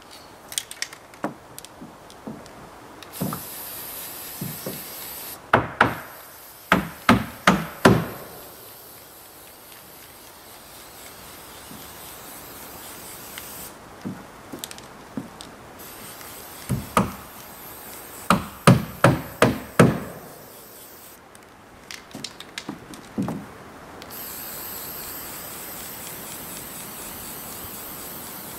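Hammer striking wood in runs of several quick blows with pauses and lighter knocks between, as nails are driven.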